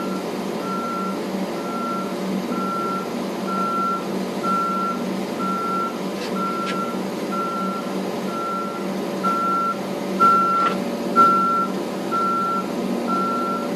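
Truck's reversing alarm beeping, one steady tone about once a second, as the truck backs up, with its diesel engine running underneath. A couple of short knocks come about two thirds of the way in.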